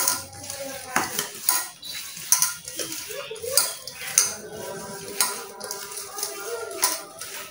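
Soaked soya chunks being mixed by hand with yogurt and spices in a stainless steel bowl, with irregular clinks of hand and bangle against the metal bowl.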